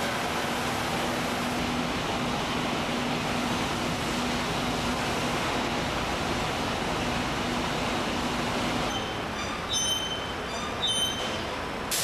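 Factory machinery running with a steady noise and a low hum. The hum stops about three-quarters of the way through, and a few short, high metallic clinks follow near the end.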